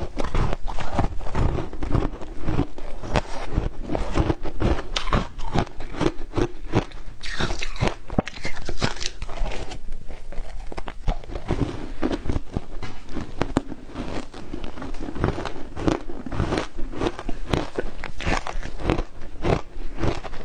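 Ice coated in matcha powder being bitten and chewed: a continuous run of close, rapid crunches and crackles.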